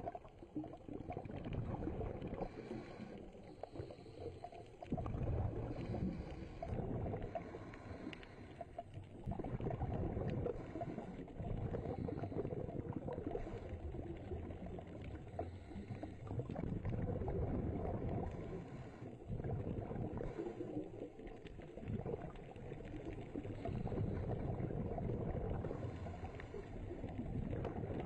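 Muffled underwater rumble of moving water heard through a submerged camera, a low noise that swells and fades every few seconds.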